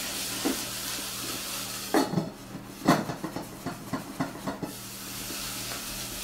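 Onions and mushrooms sizzling in a stainless steel pan with the lid off, and from about two seconds in a run of clacks and scrapes of the utensil and lid against the pan, the sharpest knock just before three seconds. The sizzle carries on steadily near the end.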